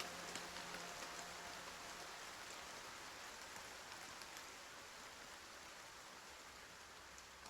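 Rain falling with a soft, even hiss and scattered drop ticks, slowly fading.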